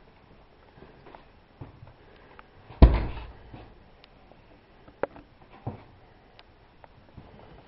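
Scattered soft knocks and clicks, with one loud thump about three seconds in that dies away over half a second.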